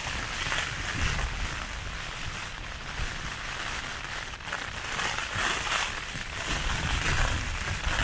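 Heavy rain pelting the fabric of a one-person single-skin tent, heard from inside, with a low, uneven rumble of gusting wind buffeting the tent.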